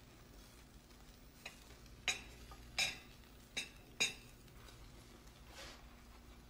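Metal cooking utensils clinking against a frying pan and plates while eggs are served: four sharp clinks between about two and four seconds in, with a lighter tap before and a soft scrape after, over a low room hum.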